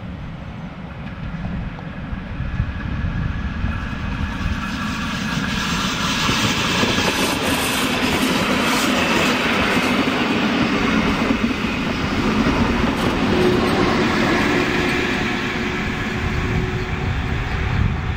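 Rhaetian Railway metre-gauge passenger train passing close: the rumble and clatter of the coaches' wheels on the track builds as it approaches, stays loud while the coaches go by, then eases. A steady humming tone comes in about two-thirds of the way through.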